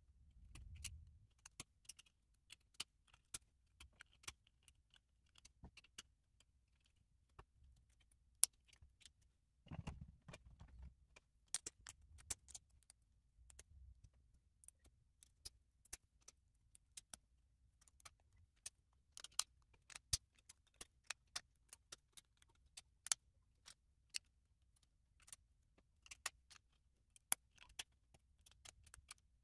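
Plastic LEGO bricks and plates clicking as they are handled and pressed together, a scatter of sharp irregular clicks with a few soft handling bumps, one of them about ten seconds in.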